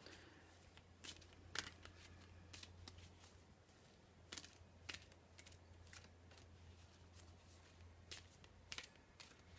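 Deck of Wild Kuan Yin oracle cards being shuffled by hand: faint, scattered flicks and taps of card edges at irregular intervals, over a low steady hum.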